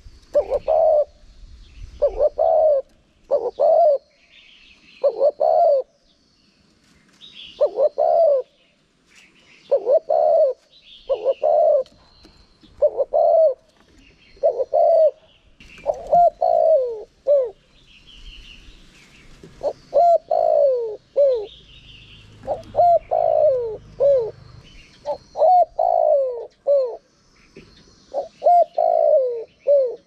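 Spotted dove cooing: phrases of two or three short falling coos, repeated every second or two. Faint high chirps of small birds can be heard between the phrases.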